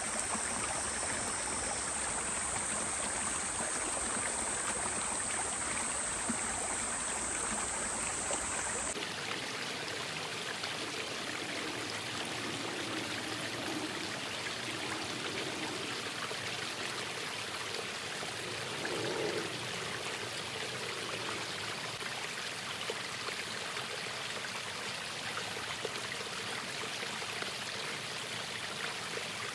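Steady rush of flowing stream water. About nine seconds in the tone shifts slightly and the deepest rumble drops away.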